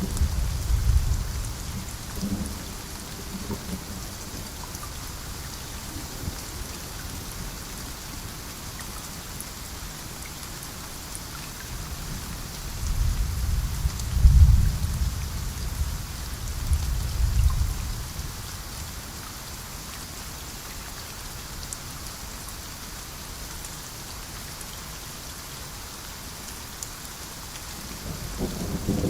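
Steady rainfall hissing without a break, with low thunder rumbling in three rolls: one at the start, a longer, louder double roll around the middle, and another building near the end.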